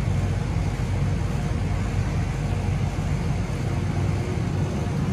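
Rooftop air-conditioner condensing unit running steadily while it is charged with R410A refrigerant: an even hum from the compressor and condenser fan.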